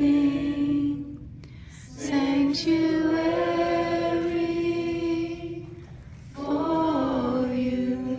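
A group of children and teenagers singing together unaccompanied, holding long notes in three phrases with short pauses between them.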